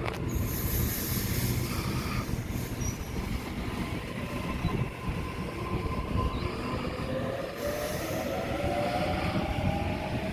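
Electric suburban train running at the platform with a steady low rumble. A motor whine rises in pitch from about halfway through as the train picks up speed.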